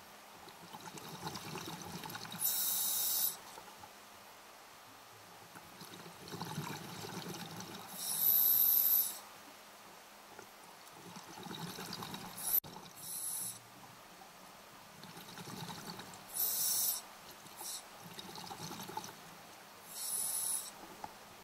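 Scuba diver breathing through a regulator underwater: short, sharp hisses of inhalation alternate every few seconds with the bubbling gurgle of exhaled air, about five breaths in all. There is one sharp click about midway.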